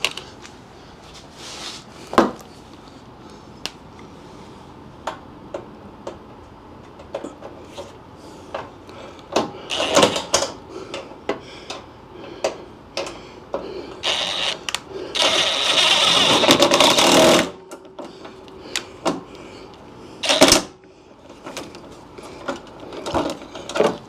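Hand ratchet on a long flexible extension turning bolts in a car's front inner fender: scattered clicks and metal taps, then a sustained run of rapid ratchet clicking from about 14 to 17 seconds in, with another short burst about 20 seconds in.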